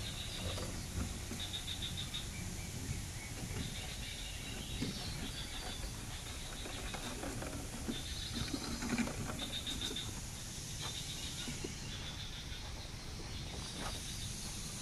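Outdoor rural ambience: a steady high insect hum with short trilling calls that repeat every second or two, and light rustling.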